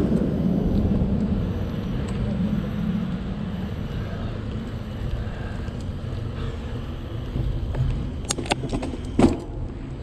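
Steady low rumble of a bicycle rolling along a paved footpath, with a few sharp clicks and one louder knock near the end.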